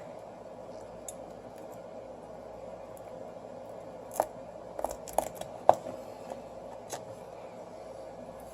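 A repair tool clicking and scraping against the cracked glass and adhesive of a Samsung Galaxy S6 Active's screen: a cluster of sharp clicks in the middle, one much louder than the rest, over a steady hum.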